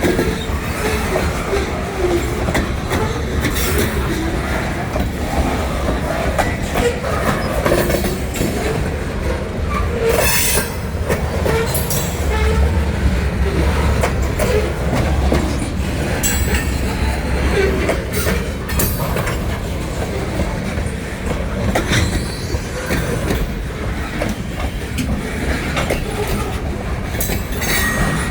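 Train cars rolling steadily past, wheels clicking over rail joints with occasional short wheel squeals, over a steady low rumble.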